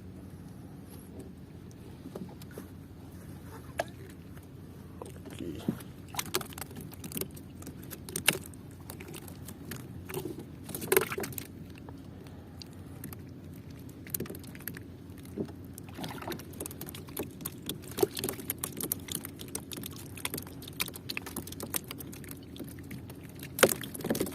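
Irregular clicks and knocks of fishing tackle being handled on a small boat over a steady low hum, as a hooked fish is played in; the clicks begin a few seconds in and are loudest near the middle and end.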